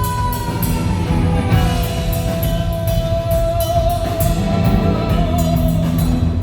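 Live rock band playing during a sound check, with drums, cymbals and bass under a long held lead note that slides down in pitch a couple of seconds in and then wavers.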